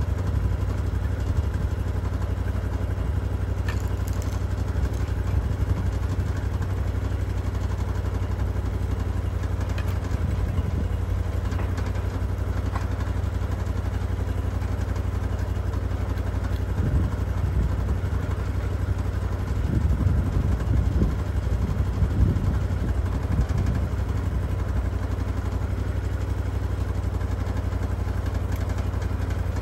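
Portable bandsaw mill's gasoline engine idling steadily, with the saw not cutting. A few irregular heavier clunks break in, most of them around twenty seconds in.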